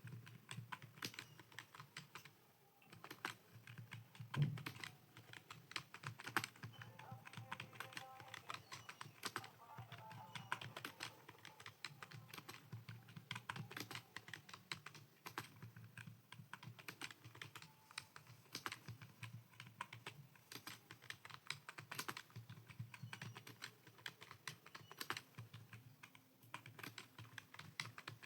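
Computer keyboard typing: a steady, uneven stream of key clicks as home-row letter drills are typed, with one louder knock about four seconds in.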